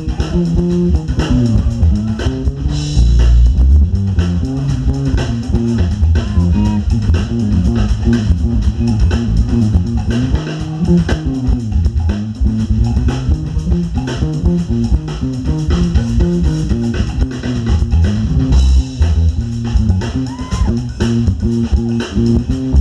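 Live band playing with a prominent electric bass line and guitar.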